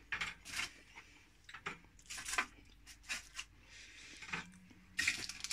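Quiet kitchen handling noises: scattered light taps, clicks and short rustles.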